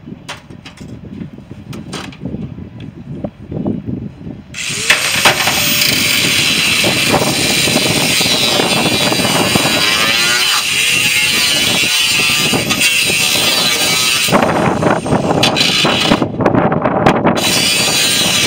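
Scattered knocks and clatter of scrap being handled, then about four and a half seconds in a power tool starts abruptly and runs loud and steady, cutting into the metal of a scrapped boiler system.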